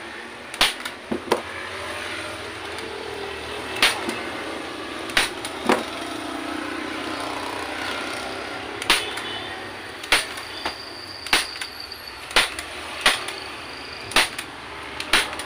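Manual hand staple gun firing staples through a vinyl seat cover into the plastic base of a Yamaha Mio scooter seat, fastening the cover. It makes about a dozen sharp snaps at irregular intervals.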